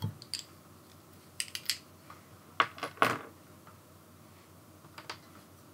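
A few light metallic and glassy clicks and clinks as a beer bottle is opened and handled: a quick cluster about a second and a half in, two more near three seconds, the second the loudest, and one more near the end.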